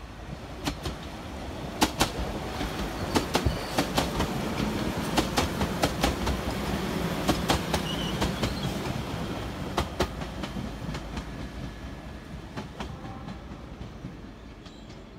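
Northern multiple-unit passenger train passing close by, its wheels clicking sharply over rail joints and points above a steady low running hum. The sound swells as it goes by and fades as it moves away.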